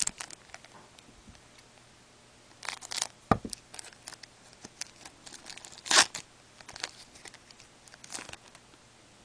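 A foil trading-card pack wrapper being torn open and crinkled by hand, in several short crackling bursts, the loudest about six seconds in.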